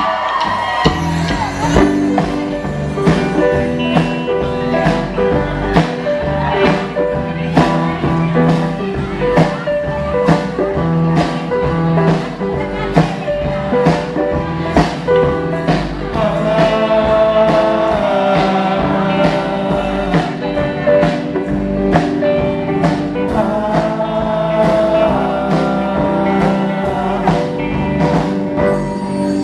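Live rock band playing the opening of a song: guitars and bass over a drum kit keeping a steady beat of about two hits a second, with long held melody notes in the second half.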